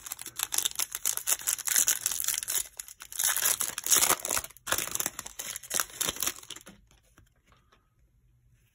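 Foil wrapper of a trading-card pack being torn open and crumpled by hand, a dense run of crinkling that stops about seven seconds in.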